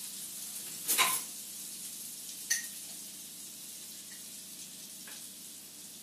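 Oil and a little lard sizzling in a hot frying pan, a steady hiss, with two sharp clinks about one and two and a half seconds in.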